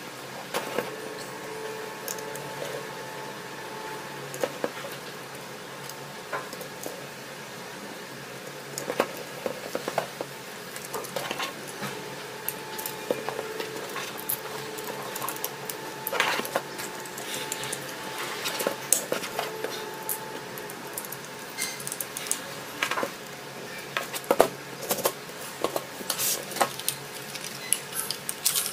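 Irregular clicks, clacks and taps of hard plastic parts and small metal screws being handled and pressed together on a tabletop during assembly of a model kit. The knocks come thicker and louder in the last third.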